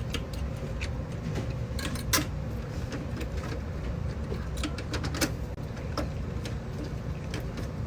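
Scattered small clicks and taps of hand work at an electrical panel, over a steady low hum.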